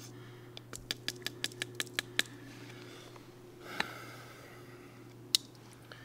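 Pocket knife working on a wooden bow-drill fire board: a quick run of about nine sharp clicks of the blade cutting into the wood, then a brief scrape and one loud sharp click near the end. A low steady hum runs underneath.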